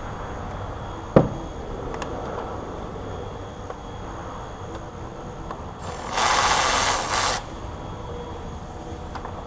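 A sharp click about a second in, then a loud hiss lasting about a second and a half past the middle, over steady workshop background noise.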